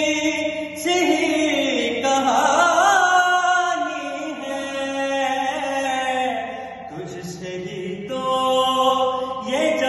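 A man's voice chanting an Urdu manqabat, a devotional poem, in a melodic recitation with long held notes and an ornamented, wavering rise in pitch about two to three seconds in.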